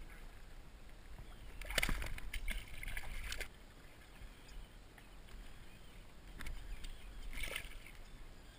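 A hooked bluefish splashing and thrashing at the surface against a boat's hull as it is held by the leader and unhooked. There are two bouts of splashing: the louder one about two to three and a half seconds in, a shorter one around seven seconds.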